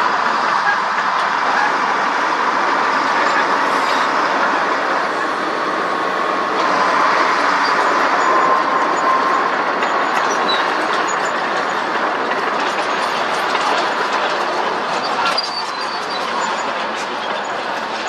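Heavy earthmoving machinery working: the steady running of wheel loaders and a crawler bulldozer, with the clanking of the bulldozer's steel tracks.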